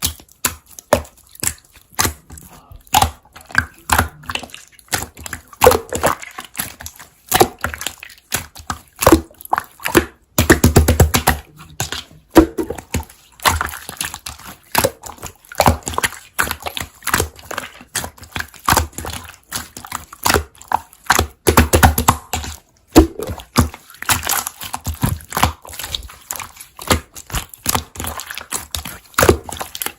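Slime being squished, pressed and stretched by hand, giving dense, irregular clicking and popping crackles.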